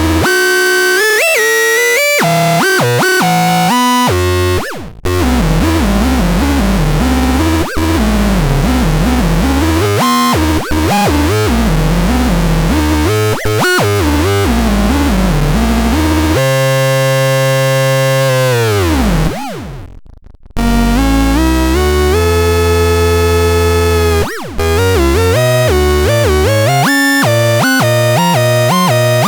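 Schädel Tron electronic synthesizer playing noisy, rapidly stepping and warbling pitched tones. About two-thirds of the way through a long tone sweeps steadily downward and cuts off, and the sound drops out briefly a few times.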